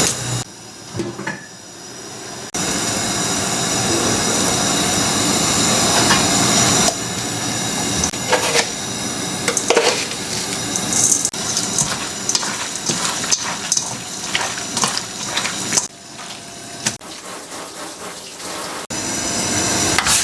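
Water running from a kitchen tap, starting and stopping several times, with scattered clinks of pots and dishes.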